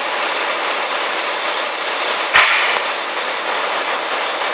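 Crane truck running steadily, its engine and hydraulics giving an even mechanical noise, with one sharp knock about two and a half seconds in.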